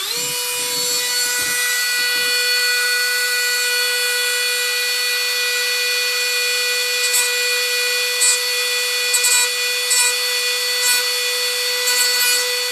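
Dremel rotary tool with a sanding drum running at steady speed, a high even whine. From about seven seconds in, short scratchy rasps come in several times as the drum grinds plastic off an LED.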